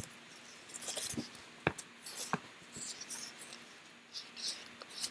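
Faint rustling and a few sharp light clicks of things being handled close to the microphone.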